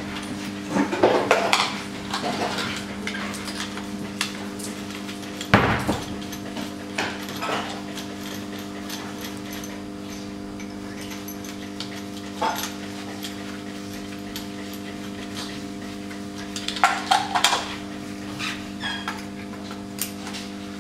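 Scattered metal clicks, taps and knocks of a compression-gauge hose and its fitting being unscrewed from one cylinder and fitted to the next on a bare diesel engine, the loudest knock about five and a half seconds in. A steady hum of several tones runs underneath.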